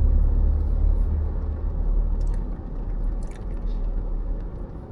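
Low rumble of road and engine noise inside a moving car's cabin, a steady drone that eases a little after about two seconds, with a few faint ticks.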